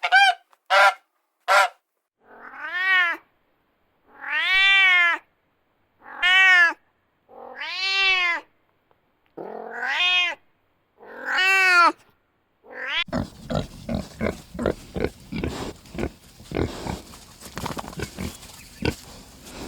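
A cat meowing about nine times, short meows at first and then longer ones, each rising and falling in pitch. About 13 seconds in it gives way to a pig grunting rapidly.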